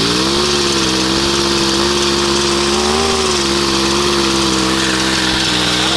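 Chainsaw's two-stroke engine running steadily at a moderate speed, driving a homemade portable water pump. Its pitch rises and settles just after the start and lifts briefly about three seconds in.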